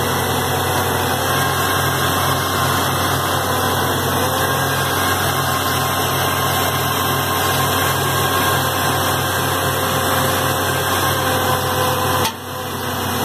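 Borewell drilling rig running, a loud steady machine drone under a broad hiss, as water is blown up out of the freshly drilled borehole. About a second before the end the low drone cuts out and the level dips suddenly.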